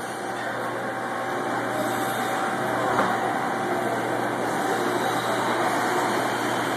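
Steady hall noise with indistinct crowd chatter in an ice rink, after the applause has died away.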